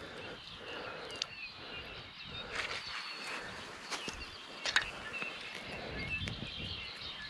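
Quiet outdoor ambience with faint, scattered bird chirps and a low hiss of wind, broken by a few small clicks and rustles from handling the landing net and a caught bass while unhooking it.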